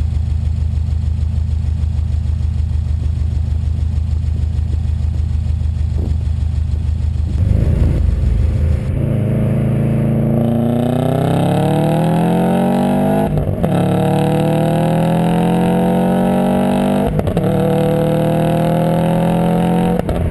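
2008 Subaru WRX STi's turbocharged 2.5-litre flat-four idling steadily for about seven seconds, then pulling under hard acceleration, its pitch climbing with two brief breaks along the way. The exhaust note carries a leak at the gasketed joint between the downpipe and the cat-back.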